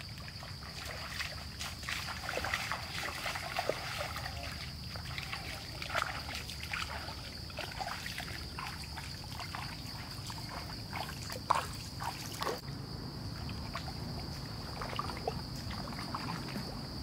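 Water splashing and trickling in small irregular bursts, as from hands or feet moving through shallow water, over a steady high-pitched insect buzz.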